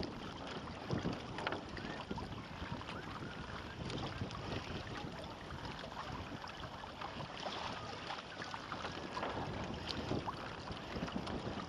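Water splashing and lapping around a small sailing kayak under way, many small splashes over a steady rush of wind on the microphone.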